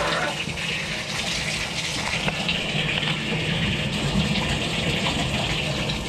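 Bathtub faucet running, a steady stream of water pouring and splashing into the tub.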